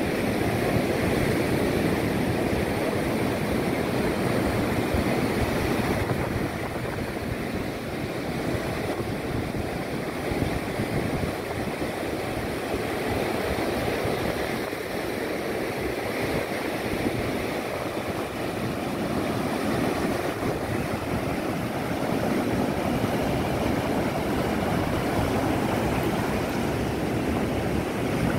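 Surf breaking and washing up a sandy beach in a steady, continuous rush, with wind buffeting the microphone.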